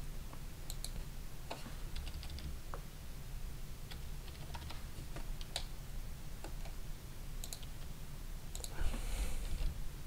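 Scattered, irregular computer keyboard keystrokes and mouse clicks over a low steady microphone hum, with a short burst of hiss about nine seconds in.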